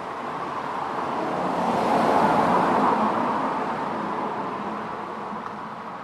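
A car passing over a road bridge, heard from underneath: tyre and engine noise swells to a peak about two to three seconds in and then fades away.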